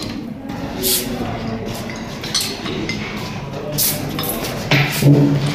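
Scattered clinks and knocks of glass and metal items being handled on a table, a few sharp ones spread through, with a short burst of voice near the end.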